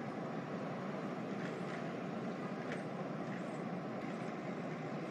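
Steady background ambience: an even, hiss-like noise with a faint steady hum and a few faint ticks, with no speech.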